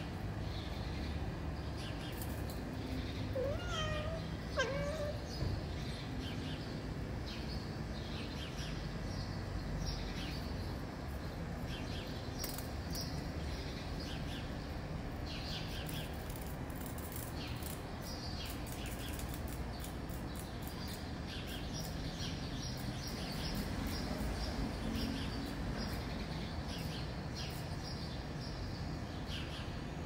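Domestic cat meowing twice in quick succession, two short calls with wavering pitch about four seconds in, over a steady low background hum.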